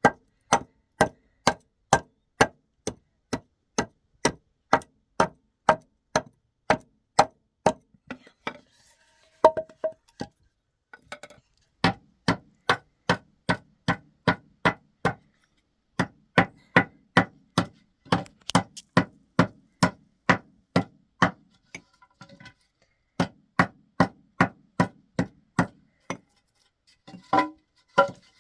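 Hammer blows on wood, about two a second, in steady runs broken by a few short pauses.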